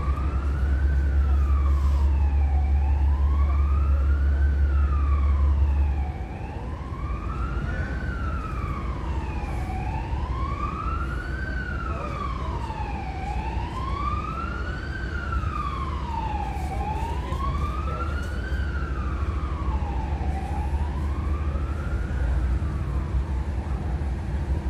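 Emergency-vehicle siren wailing, its pitch rising and falling slowly about once every three and a half seconds, over a steady low engine rumble that drops in level about six seconds in.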